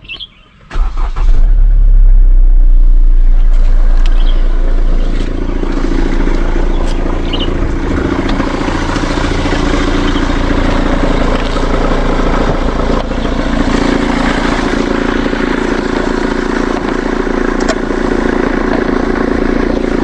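Hyundai Elantra engine starting about a second in, running louder for a few seconds, then settling into a steady idle. A bearing-like noise from the belt drive runs under the idle, which the owner takes for a worn idler pulley bearing.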